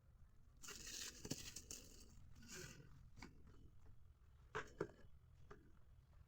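Packaging of an eyeshadow palette being handled and torn open: short bursts of rustling and tearing about a second in and again a little later. A few sharp clicks and taps follow, the loudest two close together near the end.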